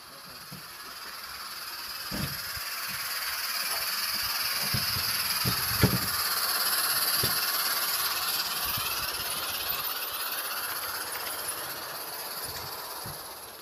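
G gauge live steam locomotive running, its steam hiss growing louder to a peak around the middle and fading toward the end, with a few short low knocks in the first half.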